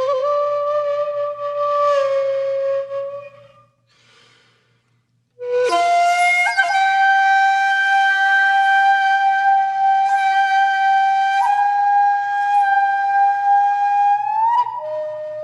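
Background music: a flute playing slow, long held notes, with a brief pause a few seconds in and one note sustained for many seconds before gliding off near the end.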